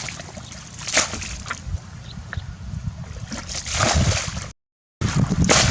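Water splashing and sloshing in a few short bursts, about a second in and again around three to four seconds in, then the sound cuts out dead for half a second before loud splashing resumes.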